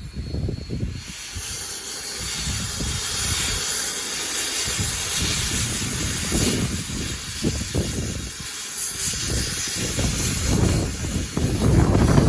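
Steam hissing steadily from Rio Grande Southern steam locomotive No. 20, starting about a second in, over a low, uneven rumble.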